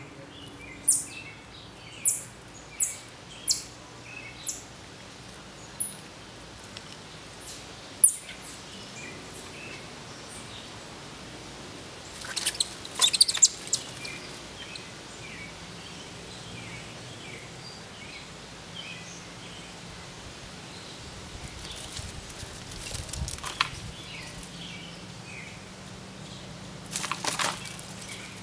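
Outdoor birdsong with small chirps throughout, and a run of sharp, high chip calls about once a second in the first eight seconds. Brief bursts of rustling, twice in the middle and once near the end, as chipmunks dash through the leaf litter and gravel.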